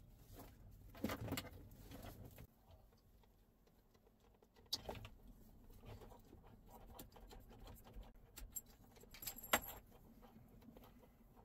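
Faint handling noise of cables and a small fan-cooled unit being shifted about, with scattered light clicks and knocks. The sharpest click comes a little before the end.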